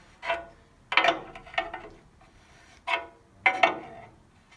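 A spanner working a nut loose on a Land Rover Defender's steel chassis crossmember: short sharp metal clicks, each with a brief ring, in small irregular groups about a second apart.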